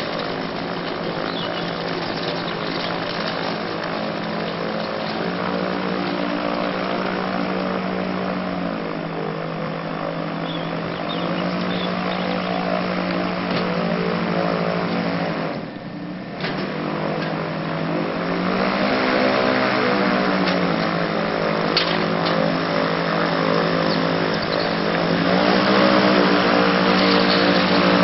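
Gyrocopter engine and propeller running, with a steady pitched drone whose note steps up and down several times as the power changes. Rushing wind or air noise sits underneath, and the sound drops briefly about halfway through.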